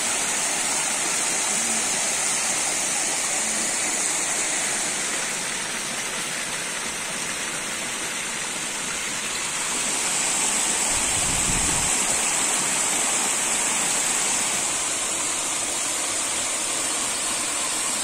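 Small mountain-river waterfall pouring over rock into a pool, a steady rushing and splashing of water.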